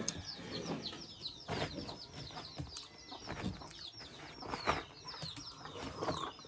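Birds chirping rapidly and continually in short, high, falling notes, with farmyard chickens clucking now and then.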